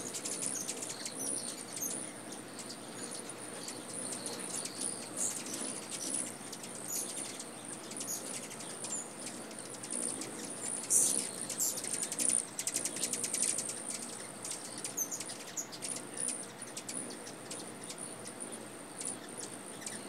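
Hummingbirds at a feeder: a steady high-pitched buzzing wing trill with rapid, scattered ticking chip notes, busiest around the middle.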